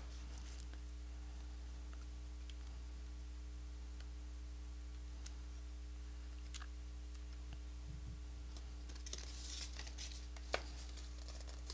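Paper rose petals being handled, with faint scattered clicks and a short burst of paper rustling and crinkling near the end, including one sharp click. A steady low electrical hum runs underneath.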